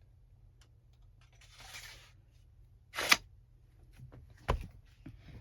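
Handling noises: a soft rustle, then a short, sharp scrape about three seconds in, and a dull thump near the end, with a few small clicks.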